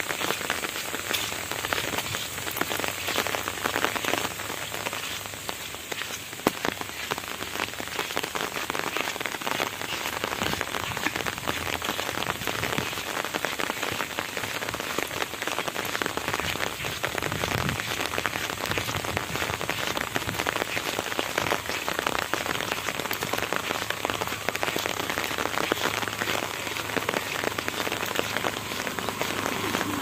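Steady rain falling on an umbrella held overhead: a constant hiss thick with small drop ticks.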